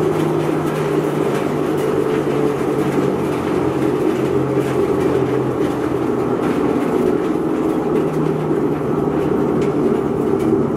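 Wood sawdust crusher running, a loud, steady mechanical din with a low hum that fades out midway and comes back, as it blows sawdust through its cyclone into the cloth collection bag.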